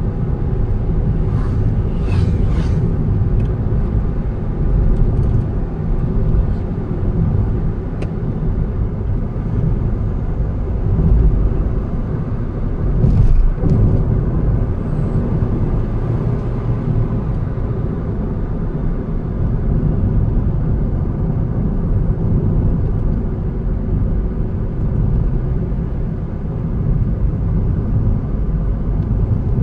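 A car driving along a road: steady engine and road rumble, with a few brief knocks in the first three seconds and again about thirteen seconds in.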